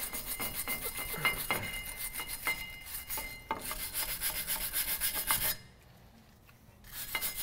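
Heavy wire brush scrubbing rust scale off a Dodge Ram 1500's bare front wheel hub and lug studs in quick back-and-forth scratching strokes. It pauses about five and a half seconds in and starts again near the end.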